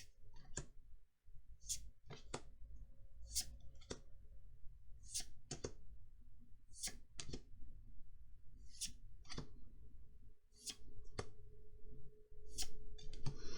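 Magic: The Gathering trading cards being flipped through by hand, one at a time. Each card gives a short, crisp snap, at an irregular pace of about one or two a second.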